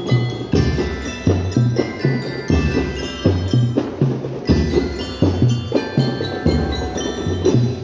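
School drum and bell-lyre band playing a repeating march tune: bright ringing bell tones over a steady pattern of drum beats.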